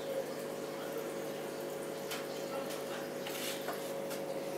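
Aquarium water trickling and splashing over a steady electric hum from the tank's pump, with a few brief drips or splashes in the second half.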